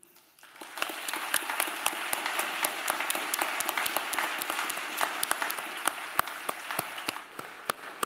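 Audience applauding: dense clapping that starts about half a second in and thins out near the end.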